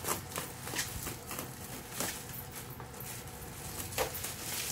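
Plastic bubble-wrap packaging crinkling and crackling as it is cut and pulled open by hand, in irregular sharp crackles, a few of them louder, about a second or two apart.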